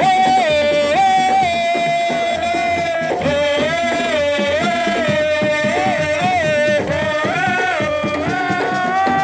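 Music: a melody of held notes that step up and down with slides between them, over a fast hand-drum rhythm.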